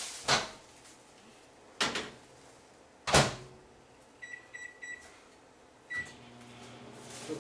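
Microwave oven being loaded and started. There are three knocks of the door opening and shutting, the last the loudest. A quick run of keypad beeps follows, then a single start beep, and the microwave's low running hum begins.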